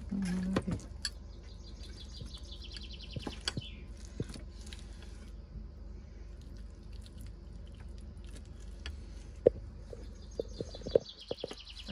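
A chef's knife slicing cooked octopus on a plastic cutting board, with soft cuts and sharp knocks of the blade on the board, the loudest about three-quarters of the way through. A bird trills twice, a fast high chirping run of about two seconds, once a second in and again near the end.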